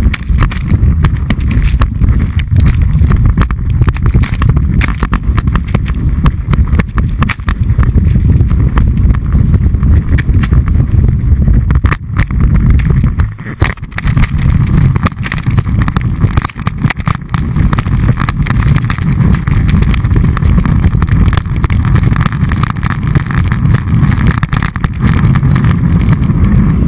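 Skis running and turning through soft, spraying snow, picked up by a camera mounted on the ski boot. The result is a loud, steady low rumble with many scraping knocks from the skis chattering over the snow. The level dips briefly about halfway through.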